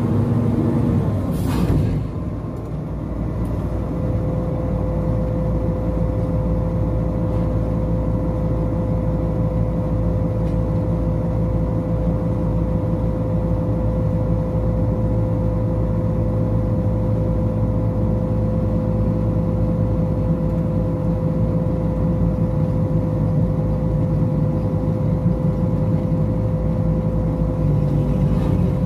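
Diesel engine of a Hitachi Sumitomo crawler crane running steadily under load while its winches work a grab bucket. A brief hiss comes about a second and a half in, and a steady high whine sets in a few seconds in and holds.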